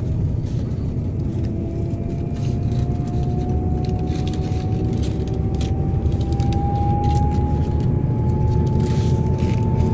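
Steady engine and road rumble heard from inside a moving vehicle, with a thin whine that rises slowly in pitch as it drives. Light clicks and rattles come through now and then.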